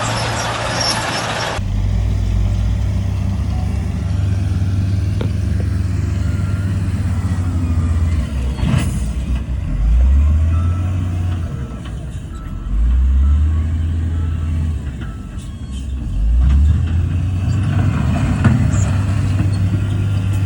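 Heavy diesel engine of earthmoving machinery running loudly, revving up three times under load, with a sharp metallic knock about a third of the way in.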